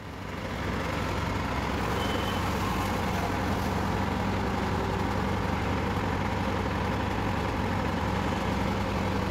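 JCB 3DX backhoe loader's diesel engine running, picking up revs in the first second and then holding steady while the hydraulic backhoe arm is worked.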